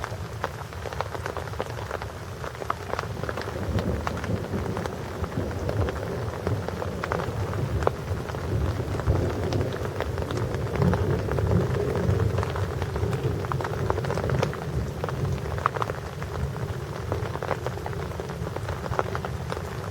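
Thunderstorm rain falling hard, with many close drop impacts heard as sharp ticks. Under it runs a low rumble of thunder that swells around the middle.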